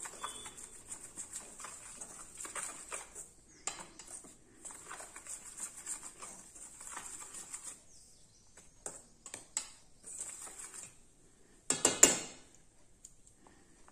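Wire whisk scraping and clicking against a stainless steel bowl as it stirs a dry gram flour and rice flour mix, busy at first, then quieter. Near the end a few sharp metallic knocks of whisk on bowl are the loudest sound.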